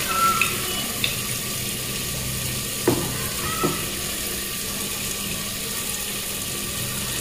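Masala and water simmering in an open aluminium pressure cooker: a steady bubbling hiss. About three seconds in there are two short knocks as a glass jar is set down on the counter.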